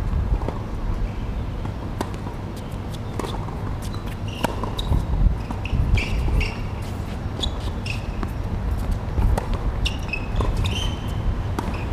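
Tennis rally on a hard court: sharp racket strikes and ball bounces at irregular intervals, with short high sneaker squeaks in the middle and again near the end, over a steady low rumble.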